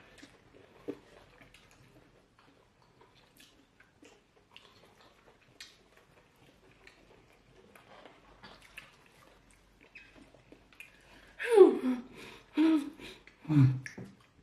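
Faint, scattered eating sounds: chewing, small wet mouth sounds and light clicks, as fufu with light soup is eaten by hand. About eleven and a half seconds in come three short, loud vocal sounds from a person.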